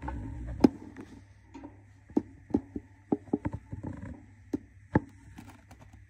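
Budgerigar hen shifting about in a wooden nest box: a string of sharp, irregular clicks and taps on the wooden floor and shredded-paper bedding, with a low bump at the start.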